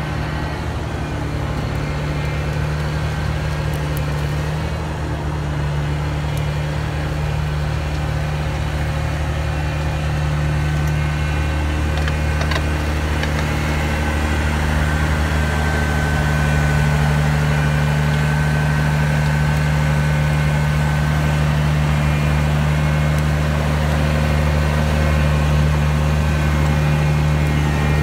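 Sugar cane harvester's diesel engine running steadily at idle, with a faint high whine joining about halfway through.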